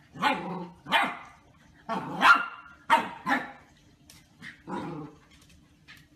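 Golden retriever puppy barking at a watermelon in short separate barks, about seven in the first five seconds.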